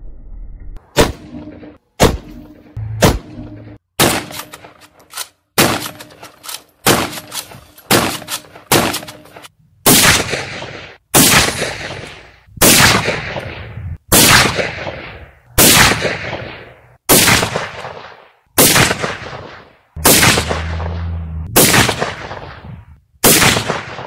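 A .50 Beowulf rifle with a 3D-printed receiver firing a long string of single shots. In the first half the shots come quickly and cut off short. From about halfway they come about one every second and a half, each with a long fading echo.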